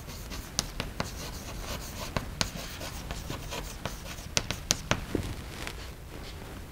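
Chalk writing on a blackboard: a quick run of taps and scratches as words are written, stopping about five seconds in.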